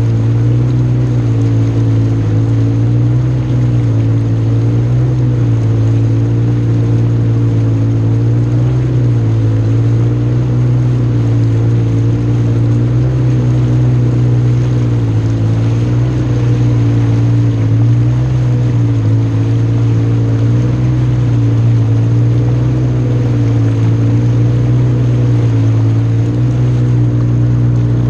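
Jet ski engine running at a steady speed, its pitch wavering slightly up and down.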